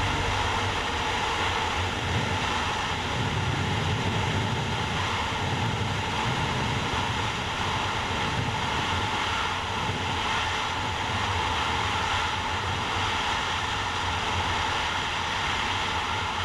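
Steady wind rush over the microphone mixed with the engine and road noise of a Yamaha MT-03 ridden at highway speed, about 140 km/h. The 321 cc parallel-twin engine holds an even note with no gear changes.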